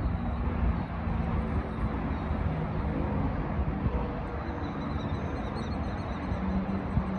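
Wind rushing over the microphone of a moving bicycle, a steady low rumble with no break.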